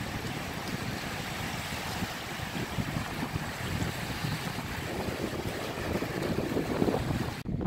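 Wind buffeting the microphone over small waves washing onto a beach, a steady rushing noise with a low rumble. The high hiss drops away abruptly near the end.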